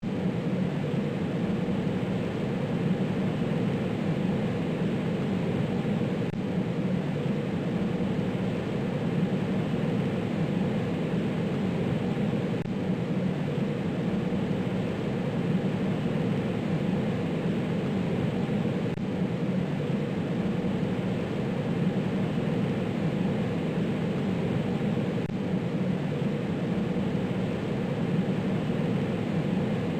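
Jet aircraft engine noise: a steady, even roar with no build-up or fade, repeating in a loop about every six seconds.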